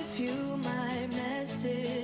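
Background pop music: a song with a melody line over a steady accompaniment.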